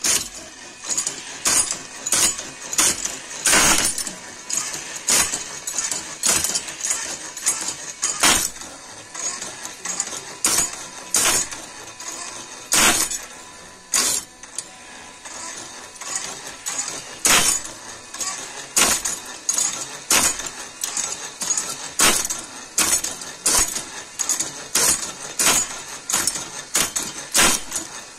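Battery-powered sugarcane bud cutting machine running: its crank-driven cutter strikes over and over with sharp metallic clacks, about one to two a second and uneven in loudness, as it punches buds out of the cane.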